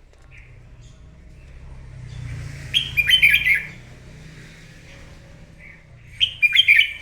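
Red-whiskered bulbul singing two short bursts of song about three seconds apart, over a faint low rumble.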